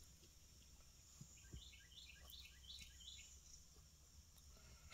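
Near silence, with faint bird chirps: a quick run of short notes, each stepping down in pitch, repeated about five times over under two seconds.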